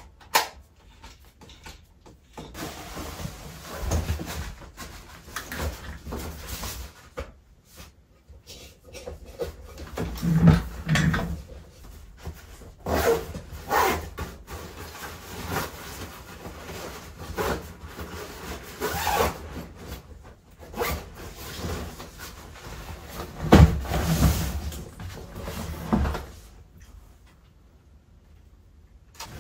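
Handling and rustling noise: camera gear and fabric being moved and rubbed, broken by irregular dull thumps and a few sharp clicks.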